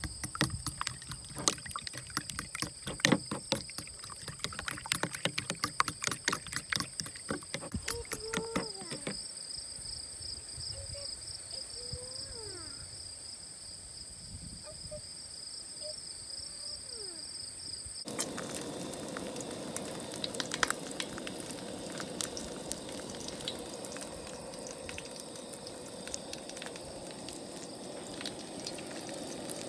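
Folding metal fork beating eggs in a bowl: quick clicking strokes for the first nine seconds or so, over steady high insect buzzing. About eighteen seconds in the buzzing stops abruptly and a steady hiss takes over.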